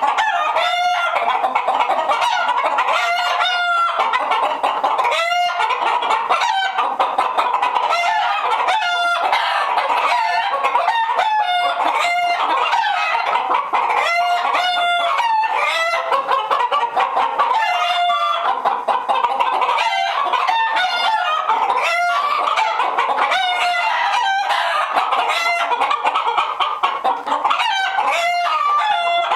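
A flock of agitated domestic hens clucking and cackling together without a break, many overlapping calls with repeated loud, drawn-out alarm squawks.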